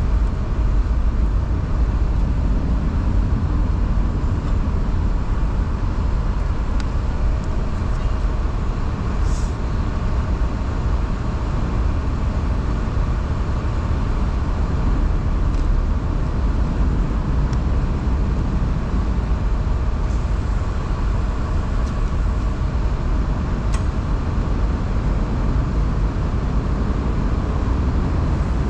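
Electric overhead hoist running steadily as it lifts a cylinder head off a Cat 3406B diesel block: a continuous low hum, with a few faint clicks.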